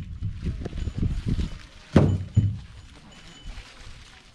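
Hollow wooden clonks from the bells hanging at the necks of Asian elephants walking in a line: two knocks about half a second apart, about two seconds in, over soft low thuds.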